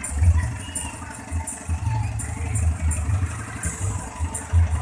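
Engine of a decorated road train running at low speed as it rolls past close by, an uneven low rumble.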